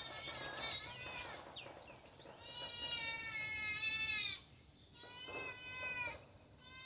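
Drawn-out animal calls, several in a row. The longest lasts nearly two seconds, and the pitch drops at the end of each call.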